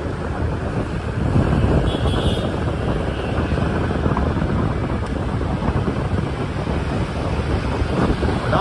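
Wind rumbling on the microphone of a camera moving through city traffic, with the steady noise of passing motorbikes and cars underneath. A short high tone sounds about two seconds in.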